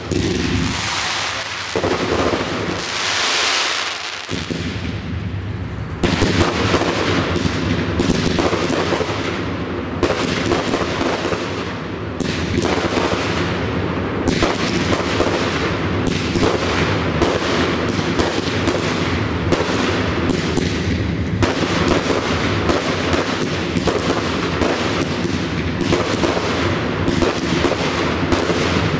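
A fireworks ground fountain hissing for the first few seconds. From about four seconds in, a dense barrage of rapid-fire cakes and aerial shells takes over: many sharp cracks and bangs a second with no break, louder from about six seconds.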